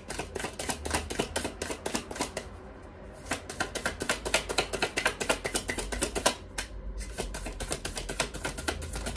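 Tarot cards being shuffled overhand by hand, the cards slapping together in quick runs of crisp clicks. Three runs, with a pause of about a second after two seconds and a shorter one about six and a half seconds in.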